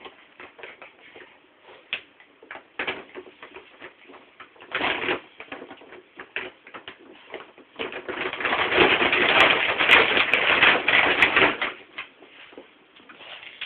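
Glossy plastic dog-food bag crinkling and rustling as a miniature pinscher rummages inside it after the leftover crumbs: scattered crackles, a short louder rustle about five seconds in, then a long loud bout of crinkling for several seconds in the second half.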